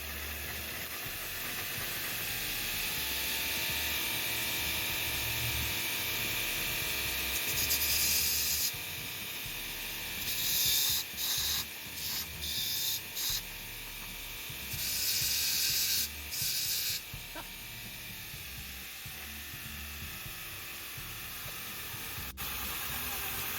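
Bauer 3/4 hp bench grinder driving a KFMK belt grinder attachment at its lowest speed, steel pressed against the 80-grit belt in several bursts of harsh grinding over a steady running hiss. The motor holds its speed under hard pressure without bogging down.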